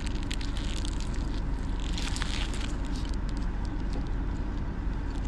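Chewing on a mouthful of burger, with faint clicky mouth sounds and a crinkle of the foil wrapper, over a steady low rumble.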